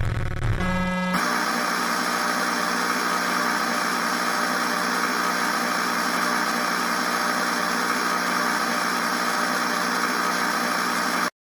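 Background music with no voice: a dense, steady held chord that starts about a second in and cuts off abruptly near the end.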